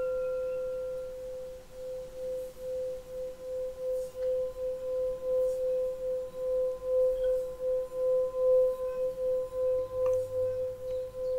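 Small Tibetan singing bowl ringing on after a strike, then sung by circling a mallet around its rim. It holds one steady low tone with a fainter higher overtone, and from about a second and a half in the sound swells and wavers in regular pulses, about two or three a second.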